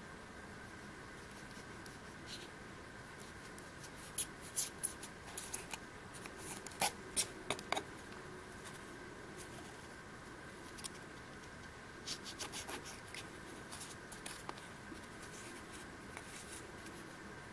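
A hobby knife blade cutting through a strip of craft foam on a wooden block, giving short scratchy scrapes and clicks in a few clusters over a faint steady hum.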